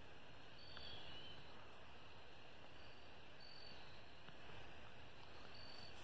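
Quiet night-time forest ambience: a steady faint hiss, with a short high-pitched chirp every two to three seconds.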